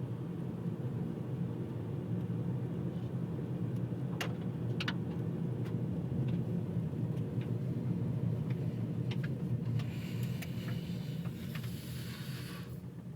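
Steady low rumble of a 2012 Honda Accord heard in the cabin, with scattered short, sharp high-pitched ticks from about four seconds in. A brief high hiss rises near the end and then the sound fades.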